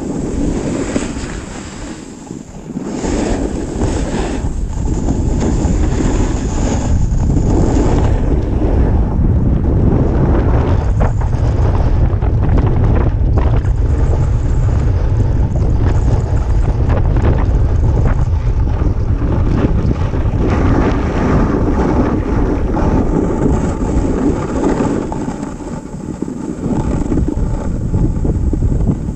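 Wind buffeting the camera's microphone during a fast descent of a groomed ski run, a loud steady rumble, with the hiss and scrape of edges on packed snow stronger in the first several seconds and again near the end.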